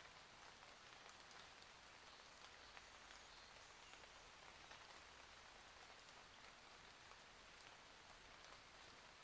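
Faint, steady light rain, a soft patter of many scattered drops.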